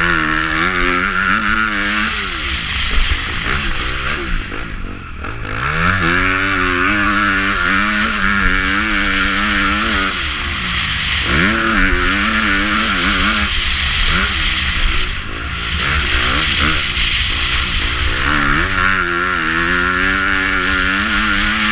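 Motocross bike engine heard from the bike, on and off the throttle around a dirt track: its pitch climbs hard under acceleration and drops where the throttle is closed, a few seconds in, around halfway and again about two-thirds through, over a steady rushing hiss.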